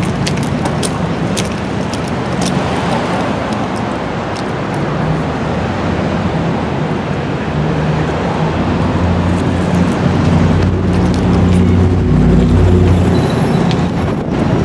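Steady road traffic noise, growing louder with a vehicle's low engine rumble about nine to thirteen seconds in, with a few light clicks early on.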